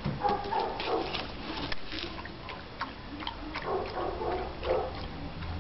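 A dog eating from a steel bowl, with a run of irregular clicks and smacking sounds.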